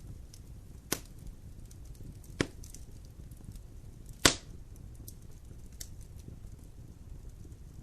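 Wood fire burning in a fireplace with a low steady rumble and faint crackling, and three sharp pops of burning logs about one, two and a half, and four seconds in, the last the loudest.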